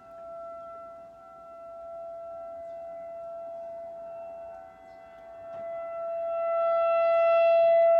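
Outdoor tornado warning siren sounding a steady tone during its monthly test. The rotating horn makes the sound fade and swell, loudest near the end.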